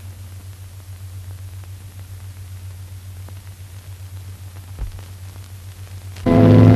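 Steady hiss and low hum of an old film soundtrack, with a faint click nearly five seconds in. Near the end, music comes in suddenly and loudly.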